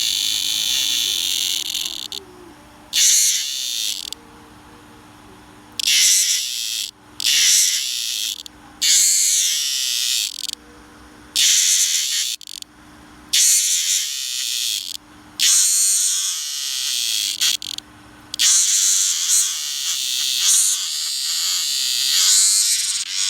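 A small animal's shrill, buzzing trill, sung in repeated bursts of a second or two with short gaps between, and a longer run near the end.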